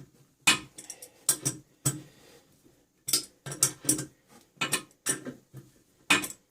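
Irregular sharp clicks and clinks of hard hardware and tools being handled while working on a toilet, with a short lull a little after two seconds in.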